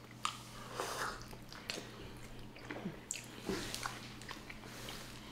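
Close-up eating sounds from a sauce-drenched seafood boil: irregular wet chewing and biting, with scattered small clicks and squishes.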